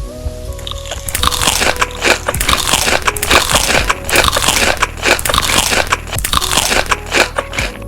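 Close-miked crunching of crisp food being bitten and chewed: a dense run of crackly crunches that starts about a second in and stops just before the end.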